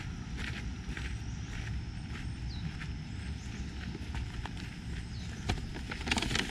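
Footsteps of a walker on a garden path, about two steps a second, over a low steady rumble.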